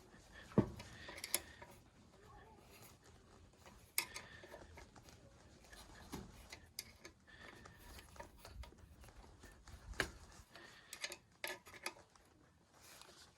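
Sparse light clicks and knocks of metal tools and parts of a Mitsubishi GM-291L engine being handled during piston installation. The sharpest knocks come about half a second in, about four seconds in, and about ten seconds in, with a few quick clicks soon after.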